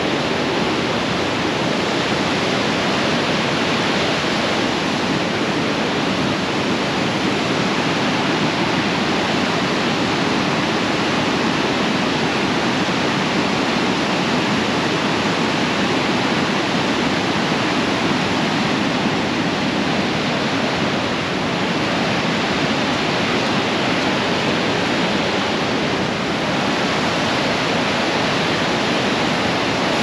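Niagara River rapids above Niagara Falls rushing fast and hard: a loud, steady wash of churning water.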